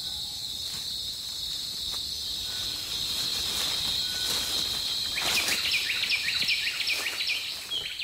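Rainforest insects droning steadily at a high pitch. About five seconds in, a quick run of short, repeated chirps joins them for a couple of seconds.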